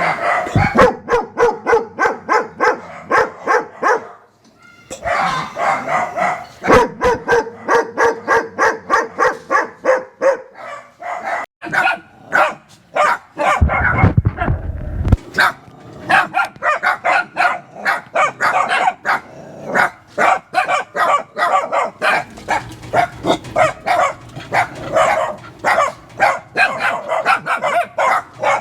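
Dogs barking in rapid, repeated runs of about three to four barks a second, broken by short pauses, with a low rumble about halfway through.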